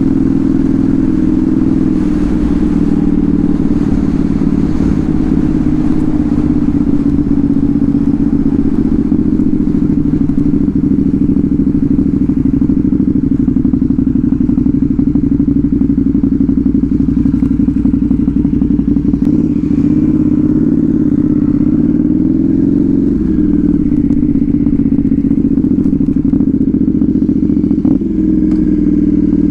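Motorcycle engine with a loud exhaust idling steadily, its pitch wavering slightly a few times around two-thirds of the way through.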